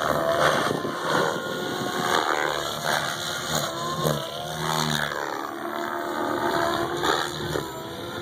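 SAB Goblin 700 RC helicopter flying aerobatic manoeuvres: its rotor and drive whine sweep up and down in pitch as it flips and passes overhead.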